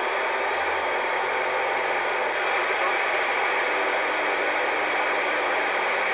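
CB radio receiver putting out a steady rush of static with no voice on it, while a strong signal holds the set's signal meter high.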